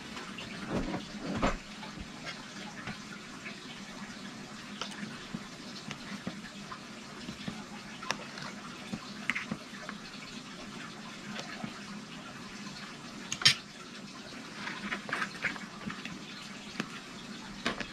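A knife and fork scraping and tapping in a metal baking pan as cassava cake is cut and lifted out, with scattered light clicks, a couple of louder knocks about a second in and one sharp click about three-quarters through, over a steady low hum.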